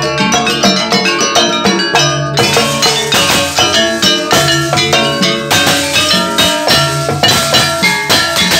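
Jaranan ensemble playing in rehearsal: kendang hand drums driving a fast, even rhythm under pitched gamelan-style metal percussion. About two seconds in, the playing turns brighter and fuller.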